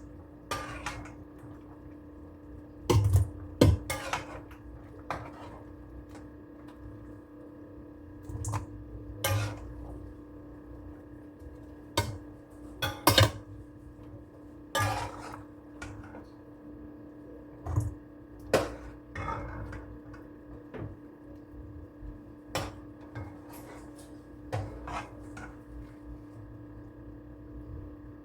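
Pots and dishes being handled: scattered clanks and knocks of cookware set down and moved about, over a steady low hum.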